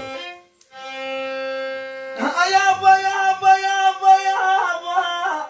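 Violin playing a slow instrumental passage of long held notes: a lower note after a brief break, then a louder, higher note held from about two seconds in.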